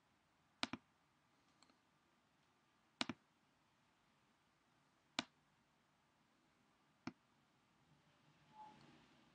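Five sharp computer mouse clicks, spaced one to two seconds apart, a couple of them quick doubles, over near silence.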